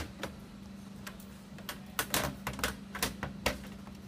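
Metal sliding lids of an ice cream freezer cart being lifted out of and set back into their tracks: irregular clicks and light knocks of metal on metal, several a second at times.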